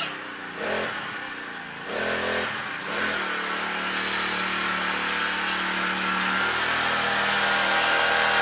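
Small engine of a motorised cooler scooter revving in a few short blips, then running steadily and slowly growing louder.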